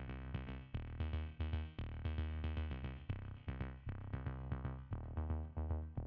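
Background music with a steady beat and a sustained bass line.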